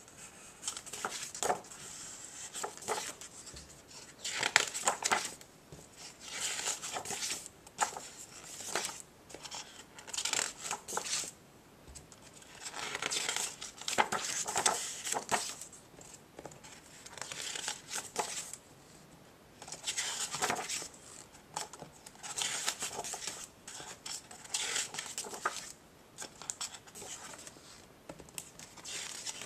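Paper pages of a hardback picture book being turned and handled: repeated rustles and swishes every second or two, with short quieter gaps between them.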